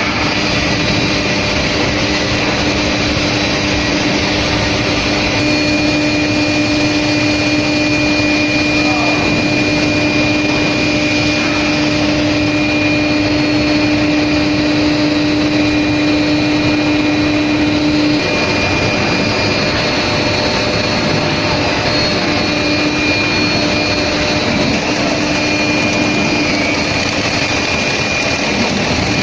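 Steady, loud running noise of a steel rail induction heat-treatment line, a constant rush of machinery with a steady high whine and a low hum that drops away about two-thirds of the way through.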